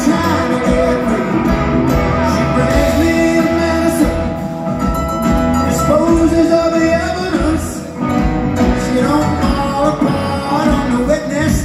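Southern rock band playing live on electric guitars, bass, drums and keyboards, heard through the hall's PA from the audience.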